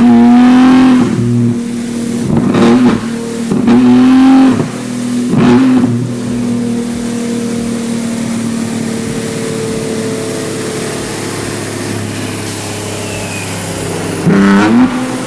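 Nissan Z's twin-turbo V6 idling steadily and being revved in five sharp throttle blips, four in the first six seconds and one more near the end, each rising and falling back to idle.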